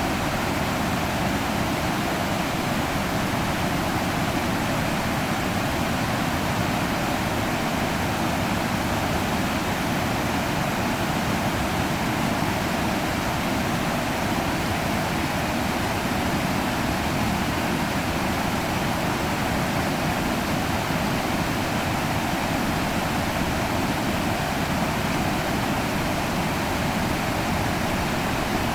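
River water rushing, a steady even noise that neither rises nor falls.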